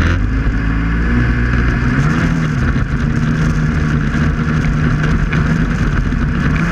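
Snowmobile engine running under way as the sled pulls off. Its note rises about two seconds in, then holds steady.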